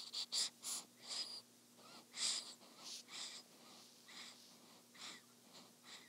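Sleeping newborn's breathing: a run of short, noisy little breaths, quick and loudest at first, then slower and softer.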